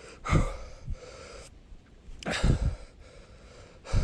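A person breathing hard, out of breath from riding a hard timed run: two heavy gasping breaths, about two seconds apart.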